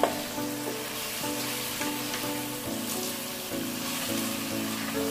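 Chilli sambal with eggplant, jengkol and dried anchovies sizzling in an aluminium wok as it is stirred with a plastic spatula, with a scrape at the start. Background music plays along.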